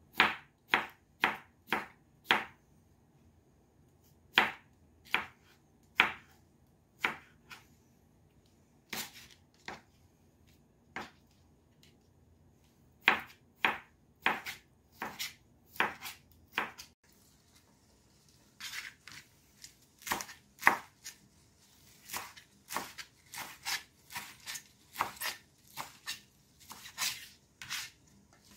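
Kitchen knife chopping vegetables on a plastic cutting board: slicing cucumber, then lettuce leaves near the end. The knife comes down in irregular runs of sharp taps with pauses between them.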